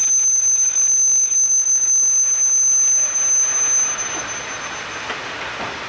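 Wheels of a freight train of stainless-steel tank wagons squealing as it rolls past: a steady high-pitched squeal over the noisy rumble of the wagons, fading out near the end.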